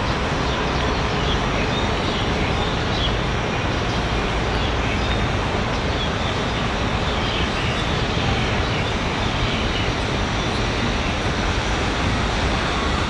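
Steady, even roar of distant city traffic, with a few faint short high chirps.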